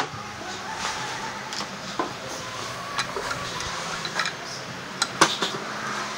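Scattered clicks and clinks of hand tools and parts being picked up and set down, irregular, with the loudest clatter about five seconds in.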